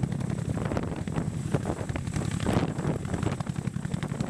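Boeing CH-47 Chinook tandem-rotor helicopter hovering low, its rotors beating rapidly and steadily, with rotor downwash buffeting the microphone.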